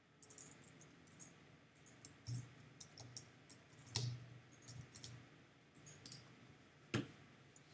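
Faint, irregular clicking of computer keyboard keys as a short line of text is typed, with a few sharper clicks among the lighter ones.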